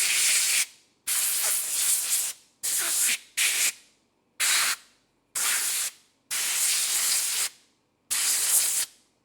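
Compressed air from an air compressor blowing onto a hand in repeated short hissing blasts, about eight of them, each starting abruptly and tailing off, with brief silences between.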